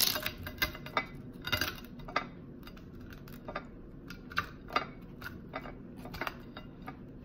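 Kitchen knife sawing and pressing through a crisp, overbaked pizza crust: irregular crunches and clicks, with the blade knocking on the plate beneath, the loudest right at the start.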